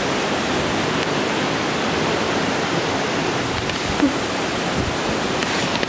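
Steady rushing hiss of heavy rain falling, heard from a high balcony.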